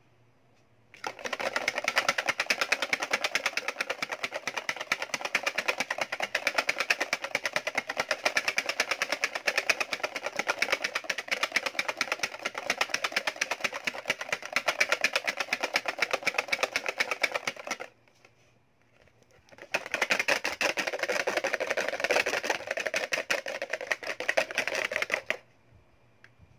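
Wire balloon whisk beaten rapidly around a bowl to whip a coffee mixture into froth: a fast, continuous clatter of the wires against the bowl. It stops for about two seconds partway through, starts again, and stops shortly before the end.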